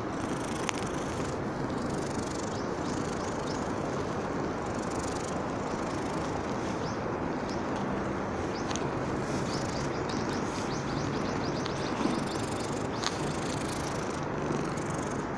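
Steady outdoor background noise with small birds chirping now and then, most often in the middle of the stretch.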